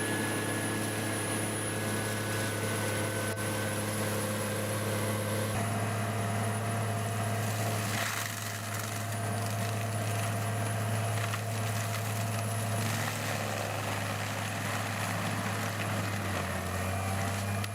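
Forestry mulcher's Cat C9 diesel engine running steadily under load, a constant low drone with mechanical noise over it.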